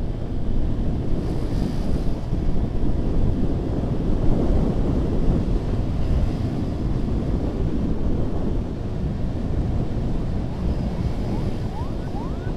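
Ambulance driving: a steady low rumble of engine and road noise with wind buffeting the microphone. Near the end a few faint short rising tones come in, about two a second.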